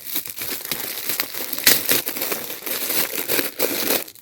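Gift wrapping being torn open and crumpled by hand: irregular crinkling and tearing, with a sharper rip about two seconds in.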